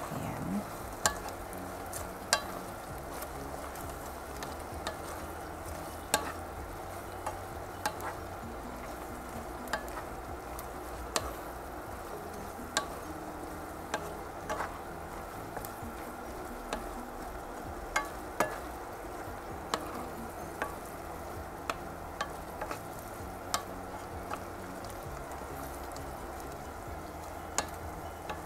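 Pechay (bok choy) leaves and canned tuna sizzling in a non-stick pan while being stirred with a wooden spatula, with sharp taps of the spatula against the pan every second or two.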